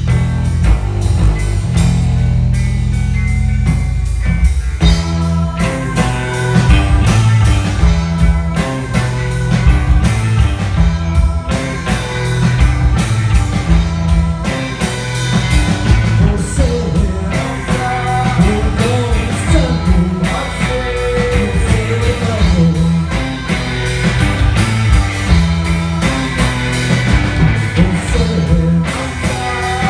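Rock band playing a psychedelic-leaning rock song, with heavy bass, steady drums, electric guitar and singing. The arrangement gets fuller about five seconds in.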